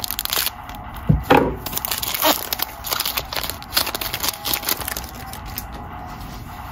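Crinkly plastic-foil wrapper of a Panini Mosaic trading-card pack being crumpled and torn open by hand, a dense run of crackles with a louder thump about a second in, dying down over the last couple of seconds.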